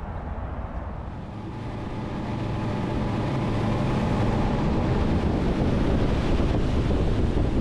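Twin Mercury outboard engines running the boat up to speed, growing louder over the first few seconds, with wind on the microphone and the rush of the wake.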